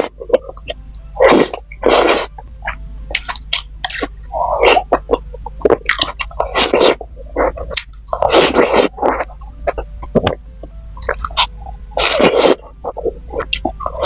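Close-miked eating sounds: short noisy mouth bursts every second or so, with small wet clicks from the mouth in between.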